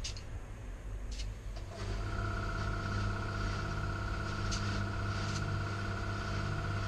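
Air station's tyre-inflator compressor running with a steady hum that starts about two seconds in, while a car tyre is pumped up through the hose; a few short hissing clicks from the hose at the tyre valve.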